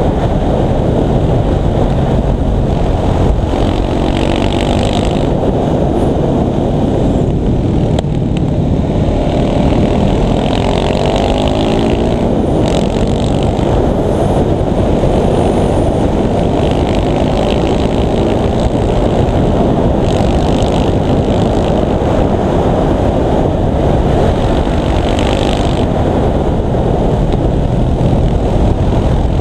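KTM 690 SMC supermoto's single-cylinder four-stroke engine under way, its revs rising and falling again and again through gear changes, mixed with heavy wind rush on the camera microphone.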